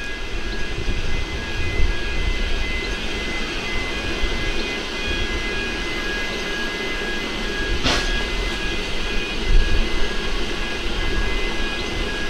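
Isle of Man Railway steam locomotive No. 12 Hutchinson with its train, running with a steady rumble, and a single sharp clank about eight seconds in.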